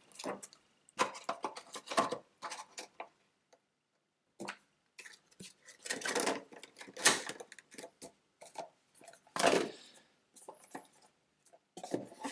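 Hands handling a board game box's contents: irregular clicks, taps and rustles of a plastic insert tray, cards and the cardboard box, with a short pause about three seconds in, and the lid set back on near the end.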